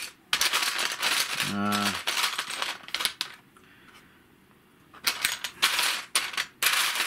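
Plastic model-kit parts and sprue pieces clattering against each other and the sides of a plastic storage box as hands rummage through them. It comes in two spells, with a quiet pause of about two seconds in the middle.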